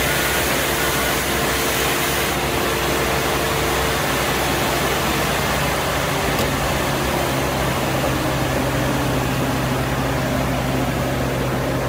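Compact street sweeper working along a gutter: a steady engine hum under a broad, even hiss as its rotating side brush scrubs the block paving.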